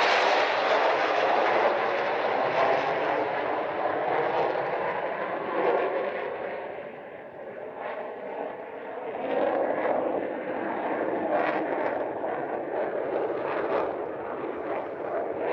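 A pair of F-35 fighter jets passing and flying away: a loud jet engine roar that grows duller as they recede. Rough crackling pops come through in the second half.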